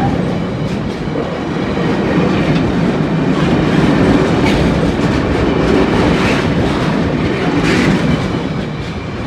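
Freight train's wagons rolling past over a level crossing: a steady loud rumble with wheel clicks over the rail joints.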